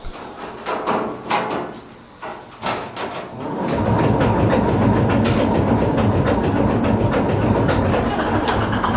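Köf small diesel shunting locomotive's engine starting up about three and a half seconds in and settling into a steady run. Before it, a few clicks and knocks from the cab controls being handled.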